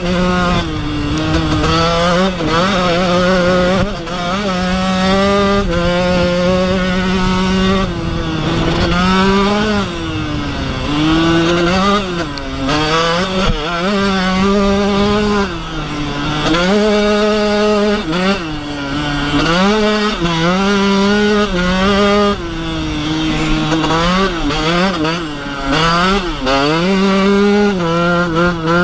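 KTM SX 125 two-stroke single-cylinder motocross engine revving hard as the bike is ridden fast, its pitch climbing and then dropping again and again as the throttle is worked.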